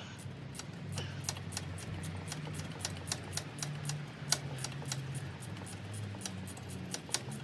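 Ratchet wrench clicking in an even run of about three clicks a second as the last alternator mounting bolt is worked loose, over a low hum.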